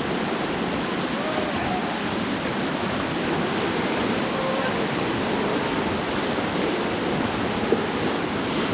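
Rushing whitewater of a river in rapids: a steady, even rush of water with no pauses, with some wind on the microphone.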